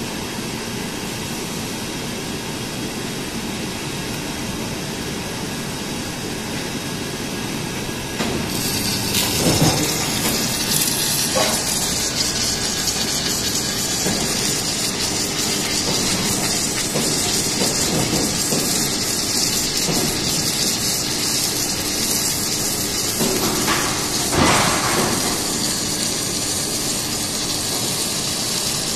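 Automatic beam welding machine running: a steady machine noise, joined about eight seconds in by a louder, steady hiss as the welding gets under way, with a few short knocks.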